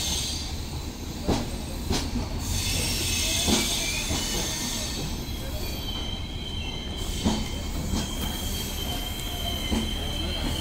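Passenger coaches of an LHB rake rolling slowly along a platform as the train slows into its terminus: irregular knocks from the wheels passing over rail joints, over a steady rumble. About halfway in, a steady high-pitched wheel squeal sets in and rises slightly in pitch near the end.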